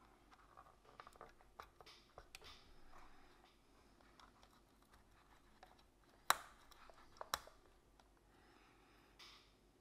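Faint clicks and scratches of fingers handling small bulb holders and wire leads on an instrument cluster's circuit board. One sharp click comes about six seconds in and another a second later.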